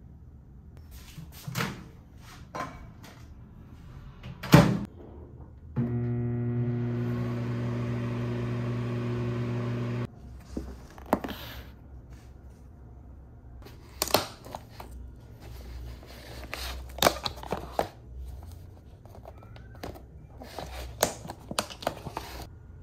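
Microwave oven: a few knocks and one loud clunk, then its steady electric hum for about four seconds, cutting off suddenly. After that, a plastic meal container and its lid are handled on a counter with light clicks and taps.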